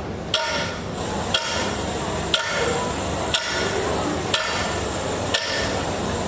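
Sharp knocks repeating evenly about once a second, over a steady hiss.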